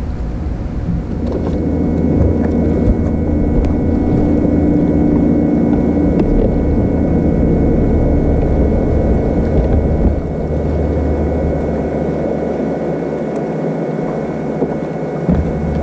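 Steady low rumble and hum of a bass boat's motor running, with a faint steady whine over it.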